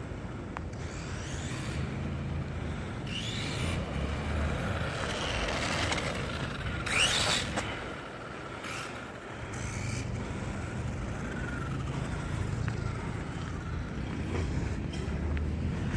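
Homemade full-aluminium-body RC car driving: a rumbling run with motor whine that rises and falls with the throttle, loudest in a sharp rising whine about halfway through.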